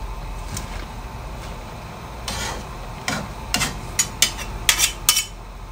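Metal spatula and tongs scraping through rice noodles and vegetables in a large wok while they are tossed together. In the second half come a run of sharp clinks of metal on the pan.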